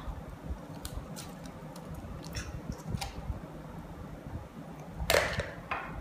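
An egg being cracked on the rim of a stainless steel mixing bowl and emptied in: a few light clicks and taps, then a louder knock about five seconds in.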